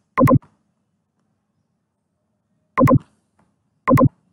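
Computer mouse button clicked three times, each a quick pair of sharp clicks: at the start, near three seconds in and near the end.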